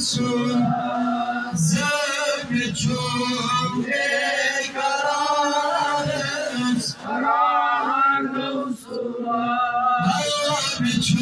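A man singing a devotional chant solo into a microphone, his voice rising and falling in long sliding phrases, broken by short breaths. A steady low hum sits beneath the voice.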